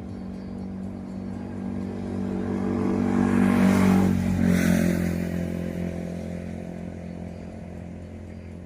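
A motor vehicle with a small engine, most like a motorcycle, passes by. Its engine note grows louder to a peak a little before the middle, drops in pitch as it goes past, then fades away.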